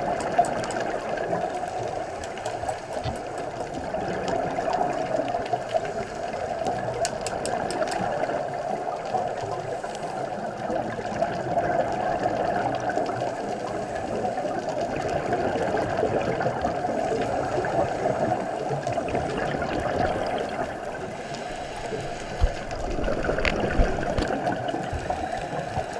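Muffled underwater rush, as heard through a camera's waterproof housing, with the bubbling of scuba divers' exhaled air from their regulators. A few sharp knocks stand out, one right at the start and two a little before the end.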